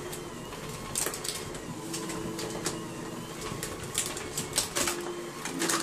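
Electric hand mixer running with its beaters in a glass bowl of cream cheese: a steady motor hum that settles about two seconds in, with scattered clicks and knocks.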